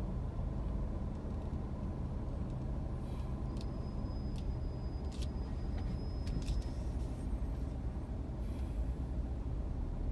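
Low steady rumble of idling road vehicles in traffic, with a few faint clicks and a faint thin high tone in the middle.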